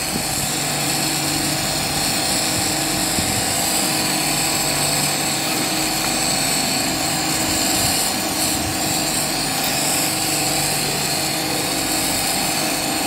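Glassworking torch running with a steady hiss and a steady mechanical hum underneath, while glass is heated in its flame.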